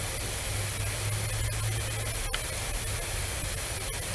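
Steady background hiss with a low hum, broken by a few faint clicks.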